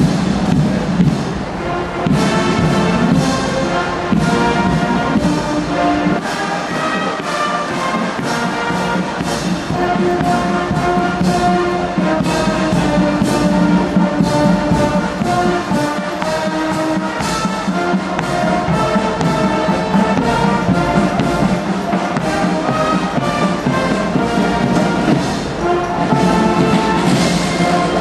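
Marching brass band with sousaphones and trombones playing a march: held brass notes over a steady drum beat.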